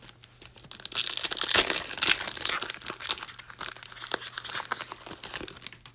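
Foil wrapper of a Panini Prizm trading-card pack crinkling and being torn open by hand, a dense crackle starting about a second in and stopping just before the end.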